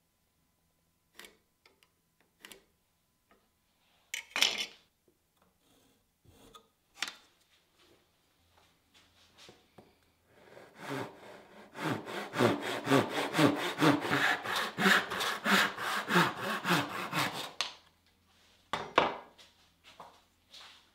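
Hand back saw cutting through a wooden block in quick, even strokes for about seven seconds in the second half. Before it come scattered light taps and clicks of tools being handled with one louder knock, and near the end another knock.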